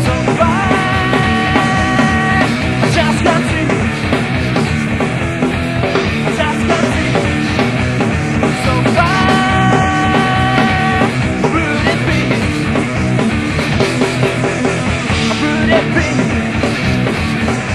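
Punk rock band playing a song from a cassette demo recording, with a long held note about a second in and again about nine seconds in.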